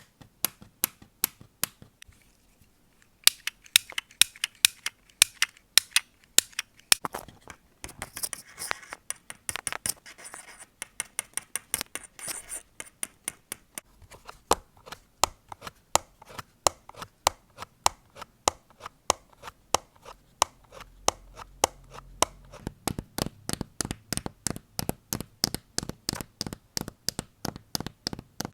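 A run of close-miked ASMR trigger sounds made by hand on objects: quick, sharp clicks and taps almost throughout, with a short pause about two seconds in and a stretch of scratching or crinkling from about eight to thirteen seconds.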